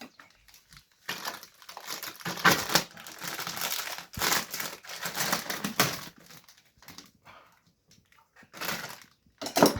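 Rustling and crinkling handling noise, irregular and lasting about five seconds, with a sharp click partway through, then a couple of shorter rustles near the end.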